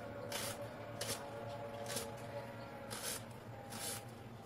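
Kitchen knife slicing through a red onion onto a plastic cutting board: five short crisp cuts, roughly one a second.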